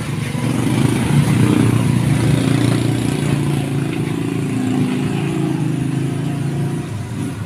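A motorcycle engine running steadily, louder through the middle and easing off near the end.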